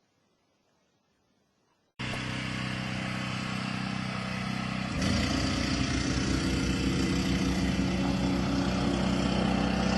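An engine running steadily. It starts abruptly about two seconds in and gets louder about five seconds in, with a fast, even pulsing.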